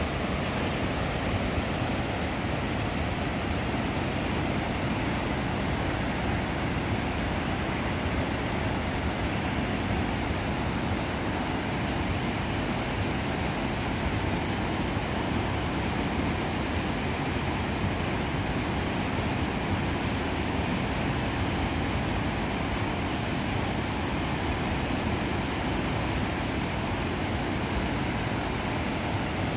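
Fast mountain river running over boulder rapids: a steady, unbroken rush of white water.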